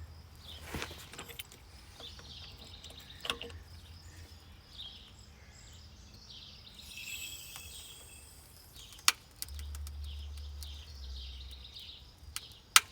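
Outdoor background with birds chirping and a few sharp knocks, the loudest about nine seconds in and just before the end, over a low hum that comes and goes.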